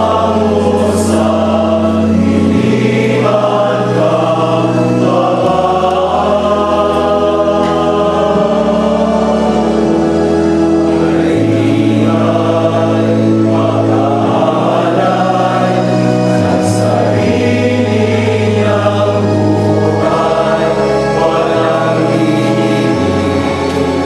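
Choir singing a communion hymn over long, steady bass notes that change every two or three seconds.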